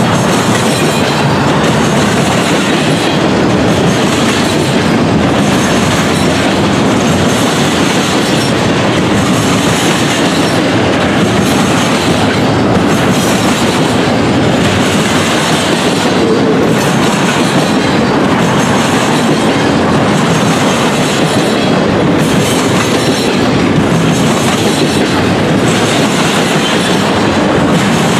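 Norfolk Southern double-stack intermodal train's loaded well cars rolling past: a loud, steady rumble of steel wheels on the rails with a rhythmic clickety-clack.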